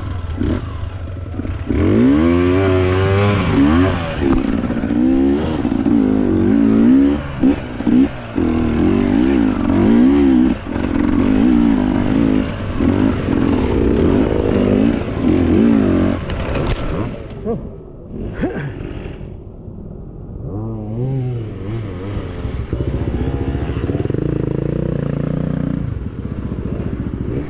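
Off-road dirt bike engine revving hard with rapid blips of throttle, its pitch swinging up and down over and over; it drops to a lower, quieter running for a few seconds past the middle, then revs up again near the end.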